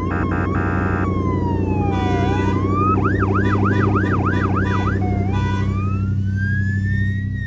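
Emergency-vehicle siren: slow wailing sweeps that switch to a fast run of about seven quick up-sweeps in the middle, then slide back into a slow rising wail, over a steady low engine drone. A few short choppy tones sound at the very start.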